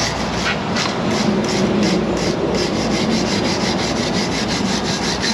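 A hand tool scraping back and forth on the metal pad and caliper contact surfaces of a front brake spindle, in rapid even strokes about three or four a second. The surfaces are worn and starting to notch.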